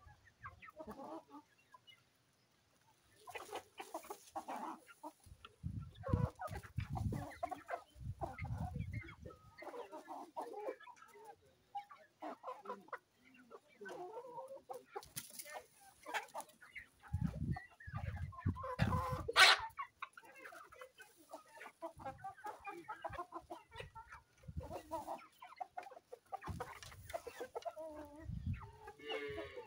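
Chickens clucking, many short calls overlapping throughout, with dull low thumps here and there and one sharp click a little past the middle.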